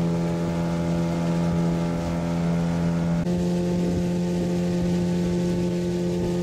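Boat's outboard motor running steadily at an even pitch. The sound changes abruptly about three seconds in.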